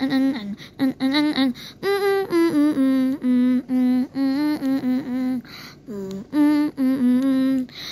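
A person's voice humming a simple tune: held notes that step up and down, in short phrases with brief breaks between them.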